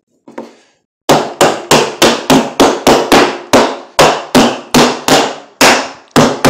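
Wooden mallet striking a cedar trim board over and over, driving it into place on a wooden cabinet frame: sharp knocks about three a second, starting about a second in.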